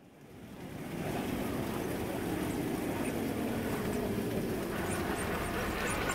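Traxxas TRX-4 RC crawler driving over a ramp of wooden slats, its electric motor and gears whirring and its soft tyres rumbling on the boards. The sound fades in over the first second, then holds steady.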